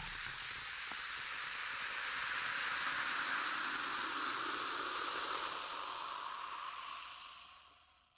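A steady rushing stream of poured water, a smooth hiss that swells a little and then fades out near the end.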